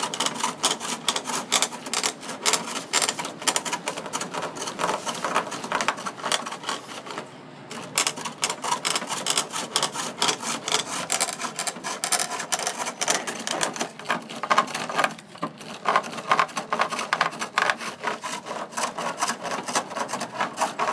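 A gouge roughing down a rough wooden blank on a foot-driven spring pole lathe: fast, continuous clattering and scraping as the spinning stock chatters against the tool. It breaks off briefly twice, about 7 and 15 seconds in.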